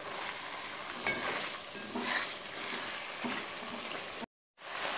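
Chicken curry with kachnar flowers frying and sizzling in a steel pot while a wooden spoon stirs and scrapes through it, a stroke about every second. The sound drops out completely for a moment near the end.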